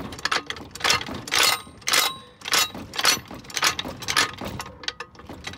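Hydraulic floor jack being pumped up, a short mechanical noise with each stroke of the handle at about two strokes a second, as the saddle rises toward the car's jack point. The strokes fade out near the end.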